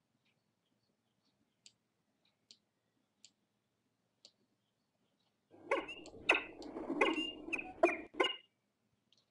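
Peregrine falcon in a gravel nest box: a few faint ticks, then about five and a half seconds in, a run of about half a dozen short, sharp calls over rustling, lasting some three seconds.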